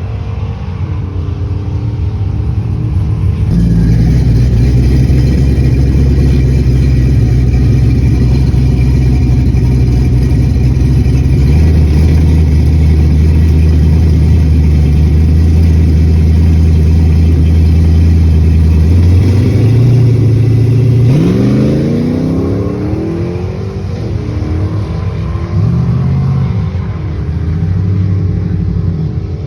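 Truck's LS V8 engine running hard and steady for a long stretch, then easing off and revving up sharply a few times near the end.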